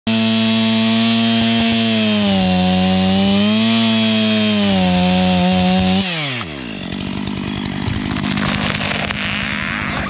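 Stihl MS 500i fuel-injected two-stroke chainsaw running at full throttle through a tree trunk in a felling back cut, its pitch dipping twice under load. About six seconds in it is let off and quickly drops to idle. The trunk then creaks and cracks as the hinge wood gives and the tree starts to go over.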